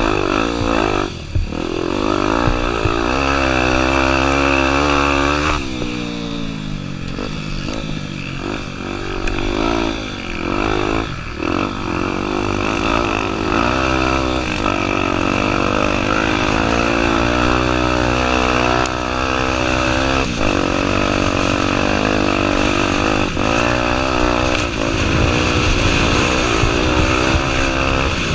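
Honda Tornado 250's single-cylinder four-stroke engine being ridden hard. Its pitch climbs and drops repeatedly with throttle and gear changes, with brief lifts off the throttle in the first ten seconds or so, then longer steady pulls.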